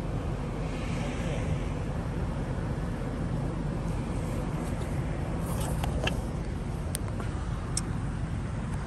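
Steady low rumble of vehicle engines idling. A few faint clicks come in the second half as the phone is handled.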